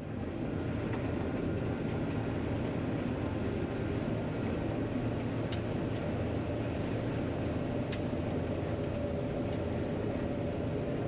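John Deere 9500 combine running steadily as it harvests soybeans, with the repaired variable speed feeder-house drive under load. A few faint sharp ticks sound over the steady running, and a steady tone joins the noise about three-quarters of the way through.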